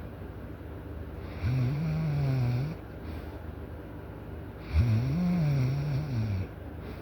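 A sleeper snoring loudly: two snores a few seconds apart, each a little over a second long, with a low droning pitch that rises and falls, and quieter breathing between them.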